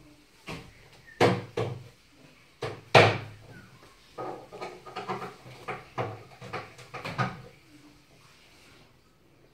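Knocks and clatter of laminated particleboard bed-frame panels and fittings being handled and fitted together. A few sharp knocks, the loudest about three seconds in, then a run of lighter knocks and rattles that stops about seven seconds in.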